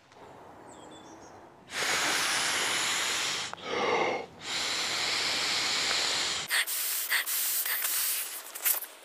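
A man blowing into the valve of a red inflatable sleeping mat by mouth: long, hissing breaths of about two seconds each, with a quick breath drawn in between them.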